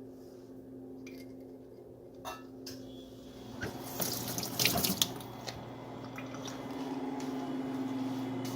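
Water running from a tap into a sink, starting about three and a half seconds in, with a few clinks and knocks of small parts being handled under it. A steady low hum runs beneath.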